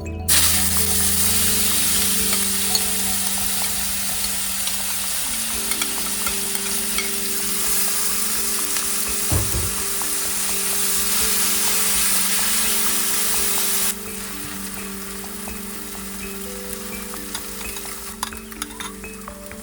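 Food sizzling in oil in a frying pan, a dense steady hiss that starts suddenly and turns quieter about two-thirds of the way through.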